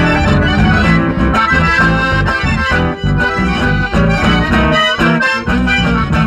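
Chamamé music led by accordions playing sustained chords and melody over a steady bass rhythm.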